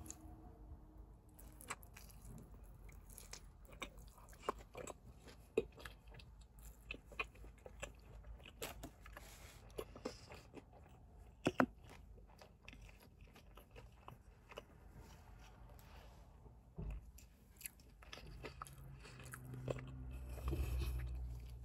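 Close-up chewing and biting of sauced fried chicken wings: scattered faint wet mouth clicks and crunches, with a low hum coming in near the end.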